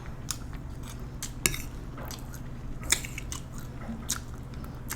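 A person chewing food close to the microphone, with scattered wet mouth clicks and smacks; the sharpest come about a second and a half and three seconds in.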